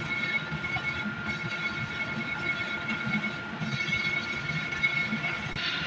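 Horizontal metal-cutting bandsaw running, its blade sawing through a thick round steel bar: a steady mechanical rumble with a steady whine over it.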